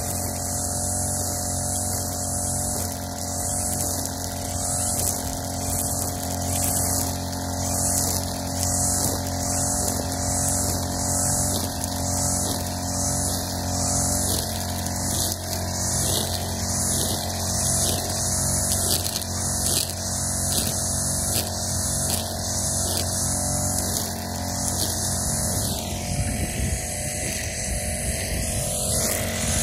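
Backpack brush cutter's small engine running steadily at cutting speed as its string-trimmer head works through tall grass.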